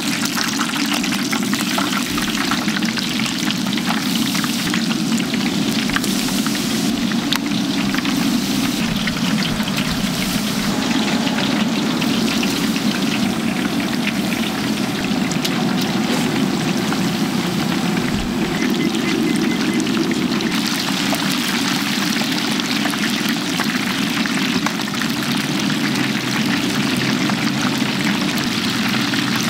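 Chicken deep-frying in oil in a large cast-iron cauldron: a steady, dense crackling sizzle, with a steady low rumble underneath.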